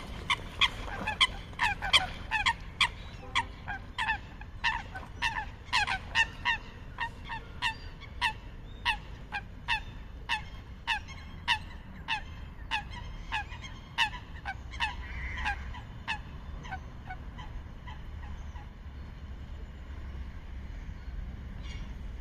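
Waterbirds on a partly frozen pond calling: a fast series of short, loud calls, each falling slightly in pitch, about two a second, thinning out and fading after about 16 seconds.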